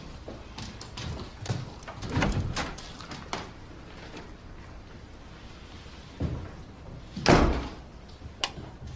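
A door being handled: a run of clicks and knocks in the first few seconds, a duller thud about six seconds in, then the loudest thud, a door shutting, just past seven seconds, and a last sharp click near the end.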